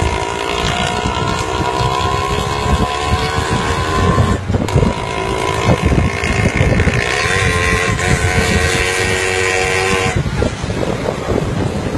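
Motor vehicle running on the road, its engine giving a steady pitched whine that creeps slightly upward over a noisy rumble. The whine breaks off briefly about four seconds in and stops near the end.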